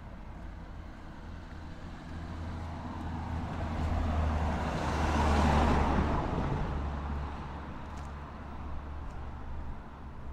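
A car driving past close by, its engine and tyre noise swelling to the loudest point about halfway through, then fading away.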